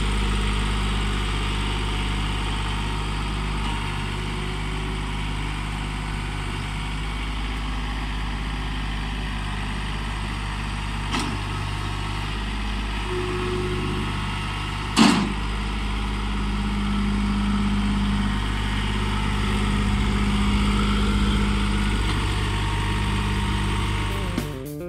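Mahindra Max 26XLT compact tractor's three-cylinder diesel engine running steadily as the tractor moves. A faint click about 11 seconds in and a sharp knock about 15 seconds in stand out over the engine.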